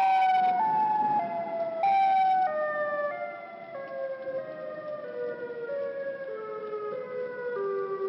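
Broken outdoor tornado siren sounding an odd, creepy tone that drops in pitch in small stair-steps about every half second. It jumps back up once about two seconds in, then keeps stepping lower and a little quieter.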